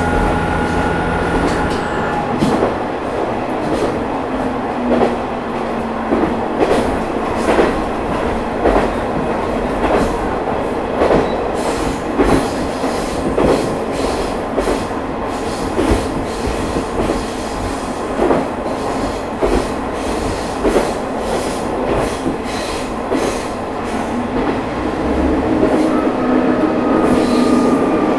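Onboard running sound of a Matsuura Railway MR600-class diesel railcar: a steady rumble with regular clacks, often in pairs, about one a second, as the wheels cross rail joints. A whine at the start dies away after about two seconds, and another whine comes in near the end.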